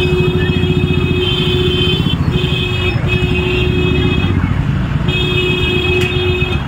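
Several motorcycle engines running at low speed in a group, with a vehicle horn held down in long blasts, three times with short breaks between.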